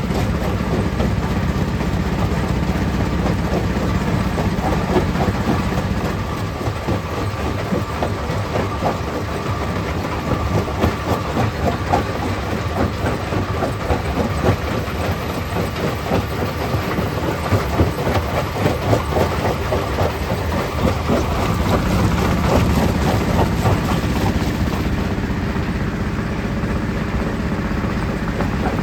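Stone crusher plant running, a steady machine hum under a long run of irregular knocking and clattering as rocks are broken and tumble through it, the knocking thickest through the middle.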